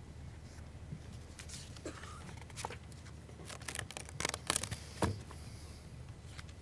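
Papers rustling and a run of sharp clicks and knocks as notes are set down and handled at a podium microphone, loudest about four to five seconds in, over a low steady hum.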